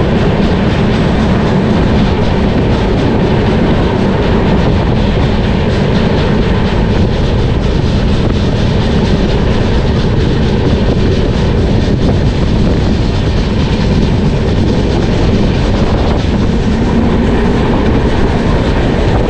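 Duranto Express passenger train running along the rails, heard from beside the coach: a loud, steady noise of wheels on track with a faint clickety-clack.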